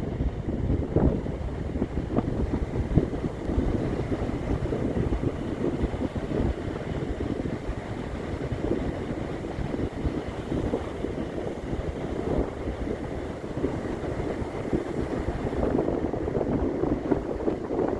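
Beach ambience: wind buffeting the microphone in uneven gusts, over the wash of ocean surf.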